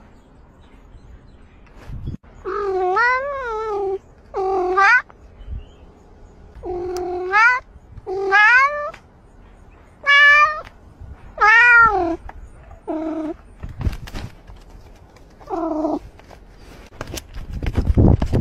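A cat meowing about eight times, long drawn-out meows whose pitch wavers up and down, loud and close. Scratchy rustling follows near the end.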